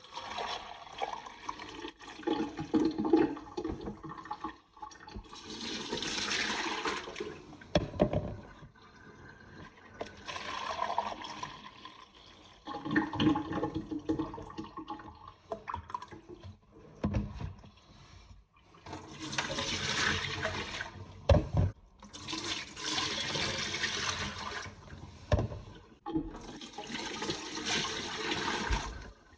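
Water collected from a dishwasher's drain being poured out of a container in several pours of a few seconds each, with knocks of the container being handled between them.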